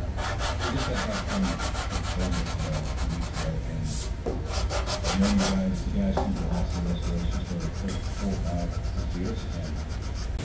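Hand sanding block rubbed back and forth over a car's body panel, a scratchy, quick, rhythmic stroking with a short pause about four seconds in.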